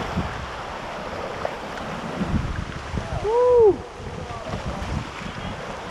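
Rushing whitewater of a class II rapid and wind buffeting the microphone, a steady dense noise. Just past the middle comes one short pitched call that rises and falls, the loudest sound.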